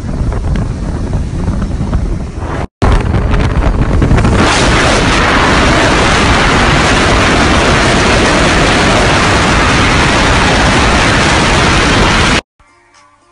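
Heavy wind buffeting on a phone's microphone on a moving motorcycle, with the bike's engine under it. It cuts out for a moment about three seconds in and stops abruptly about a second before the end.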